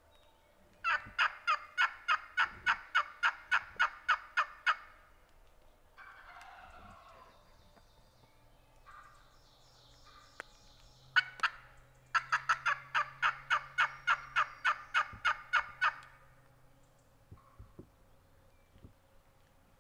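Hen turkey yelping: two long runs of evenly spaced yelps, about four a second, each lasting about four seconds, roughly ten seconds apart, with a fainter rough call between them.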